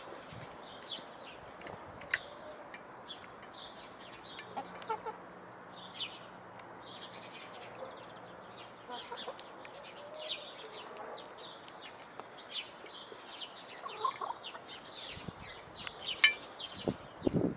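Domestic hens clucking softly while they peck at cooked noodles in a metal bowl, with frequent quick pecking ticks. There is a sharper knock about two seconds in and a louder stir of sound near the end.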